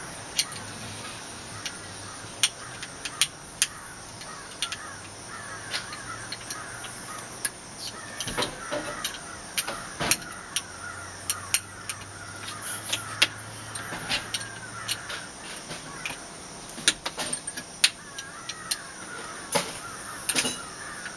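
Scattered small clicks and taps of a storm-door handle set being fitted and its screws tightened by hand, with harsh bird calls coming in now and then.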